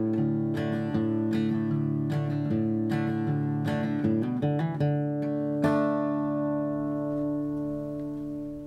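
Acoustic guitar music: a run of picked notes, then a last strummed chord about two-thirds of the way in that rings on and fades out at the end.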